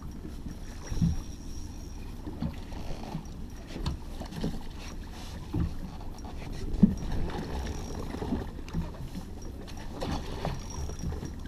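Small motorboat drifting on the sea: water slapping against the hull, with scattered knocks and thumps from the boat, the sharpest about seven seconds in, over a steady low rumble.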